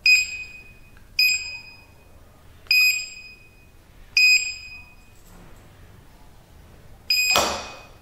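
Access-control keypad's built-in buzzer beeping once per key press as a four-digit PIN is entered: four short, high beeps about a second and a half apart, each with a faint click of the key. Near the end a fifth beep comes with a half-second burst of noise.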